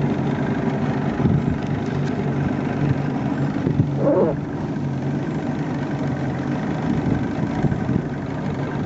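Johnson 115 outboard motor running steadily as the boat cruises, a constant low engine hum. A brief wavering higher sound comes through about four seconds in.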